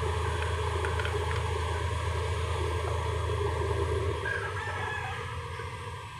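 Mitsubishi Fuso 6M70 inline-six diesel engine running with a steady low rumble that dies away over the last two seconds. A rooster crows in the background about four seconds in.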